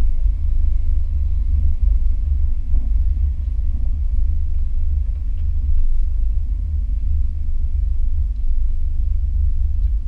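Dodge Hemi V8 running at low speed, a steady deep rumble heard from inside the car's cabin.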